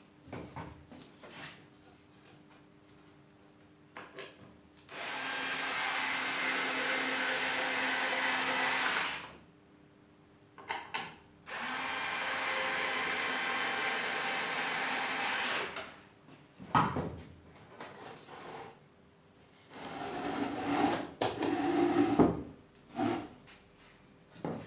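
Homemade disc sander driven by a washing-machine motor, running in two steady bursts of about four seconds each with a hum under a loud hiss. Knocks and rubbing sounds come between and after the runs.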